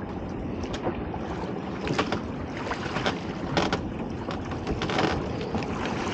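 A lobster pot hauled by hand up out of the sea over the side of a small boat, water splashing and streaming off it, with a few sharp knocks of the pot against the hull. Wind rumbles on the microphone throughout.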